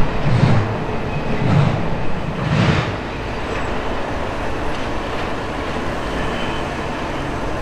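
The last cars of a double-stack intermodal freight train roll past, their wheels clacking over the rails about once a second for the first three seconds. The sound then settles into a steady rumble as the train moves away.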